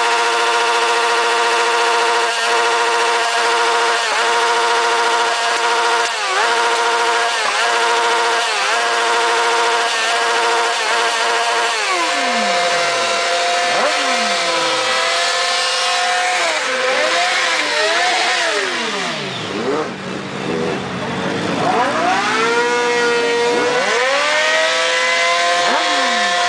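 Motorcycle engine held at high revs, dipping briefly about once a second. About halfway through, the revs are dropped and blipped back up repeatedly.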